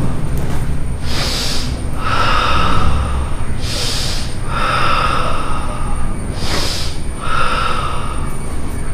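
Forceful, audible Sanchin kata breathing: three cycles, each a short sharp breath followed by a longer, pressed breath of about a second and a half, the controlled tension breathing the kata is built on.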